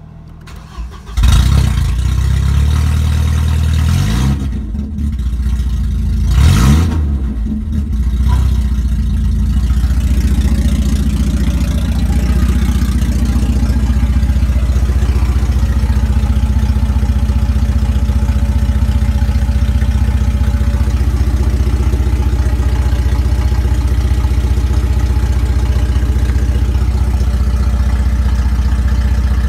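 VW Passat B5's 1.6-litre AHL four-cylinder petrol engine starting about a second in, revved up and back down twice, then settling into a steady idle.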